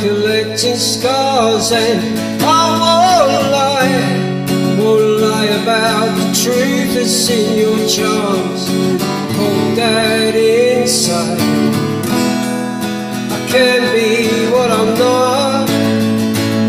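Acoustic guitar chords with a voice singing the melody over them, with clear vibrato on held notes.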